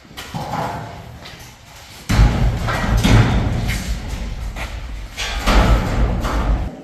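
Irregular thuds and knocks from a steel roll-up garage door being fitted into its opening, over a low rumble that comes in suddenly about two seconds in.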